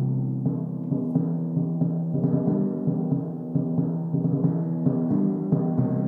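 Solo timpani played with mallets across a set of four copper-bowled drums: a rhythmic run of strokes, several a second, each drum ringing on at its own pitch under the next stroke.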